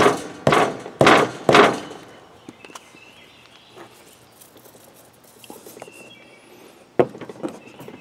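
A rubber mallet strikes the T-handle of a tire reamer four times, about two blows a second, driving the reamer into a riding mower's tubeless tire to enlarge the puncture for a plug. Then comes quieter handling of the tool, and a single knock about seven seconds in.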